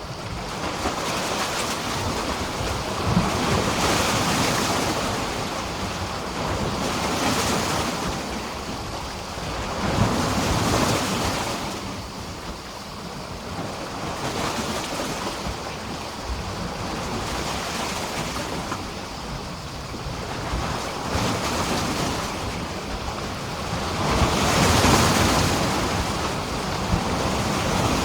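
Small sea waves washing and splashing against a pier, swelling and ebbing every few seconds; the biggest surge comes a few seconds before the end.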